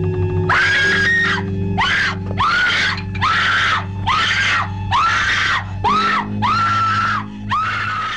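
Music with a steady low drone of held tones, over which comes a run of about nine shrill, scream-like cries, each under a second long, pitch rising at the start and falling away at the end.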